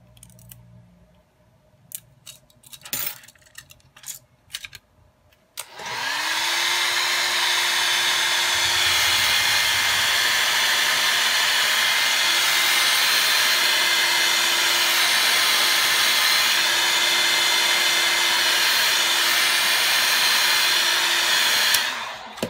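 A few light clicks and taps, then a handheld hot-air blower switches on about six seconds in, its motor tone rising as it spins up, and runs with a steady loud rush of air, heating the cracked phone display to soften its adhesive. It cuts off shortly before the end.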